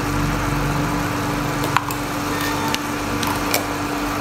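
Diced pork belly sizzling as it stir-fries in a stainless steel pan, over a steady low hum. Several light clicks of a spoon against the pan come in the middle as shrimp paste is spooned in.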